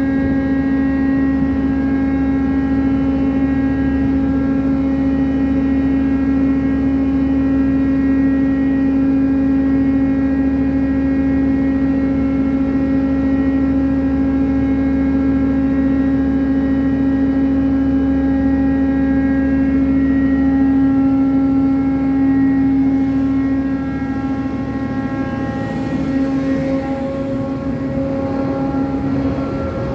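Ship's deck crane machinery running with a steady, strong hum while hoisting a loaded grab bucket of wheat out of the cargo hold. Near the end the hum changes pitch and drops a little in level.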